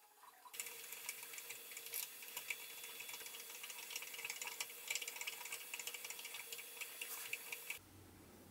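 A tap being turned by hand in a T-handle tap wrench, cutting a thread in an aluminium plate: faint scraping with fine, uneven clicks, starting about half a second in and stopping suddenly near the end.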